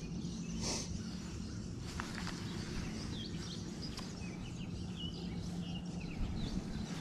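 Lakeside ambience: a steady low hum with a few birds chirping briefly in the middle, and a short swish just under a second in.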